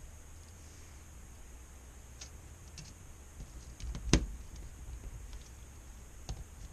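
A few faint clicks and taps from LCD panel parts being handled and fitted back together, with one louder knock about four seconds in.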